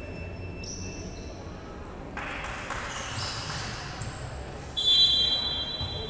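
A referee's whistle blown once, a shrill steady blast starting abruptly nearly five seconds in and lasting about a second, over the hum of a gym with voices and ball play.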